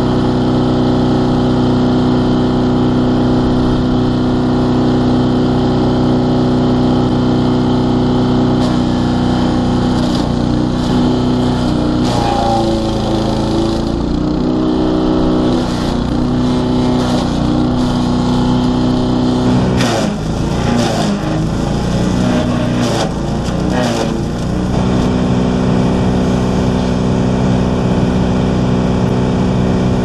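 Small gas-engine wood chipper running at a steady speed, its note dipping and breaking up as branches are fed in. Wood cracks and snaps in the blades, about twelve seconds in and again, more heavily, around twenty seconds in.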